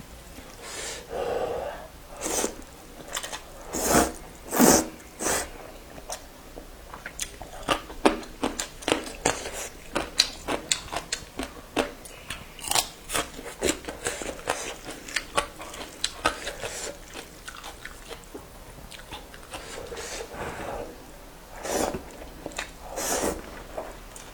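A person biting and chewing crunchy food close to the microphone, in irregular crunches and mouth clicks.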